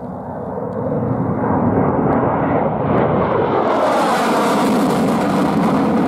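Jet noise of a Mirage-family delta-wing fighter (SNECMA Atar 9C turbojet) flying low with its landing gear down. It swells quickly over the first two seconds as the jet closes in, then stays loud, taking on a harsh hiss and a sweeping whoosh from about halfway as it passes the listener.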